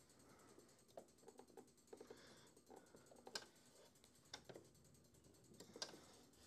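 Near silence with about half a dozen faint, scattered clicks and taps as pinned fabric is handled and set under a sewing machine's presser foot; the machine is not yet stitching.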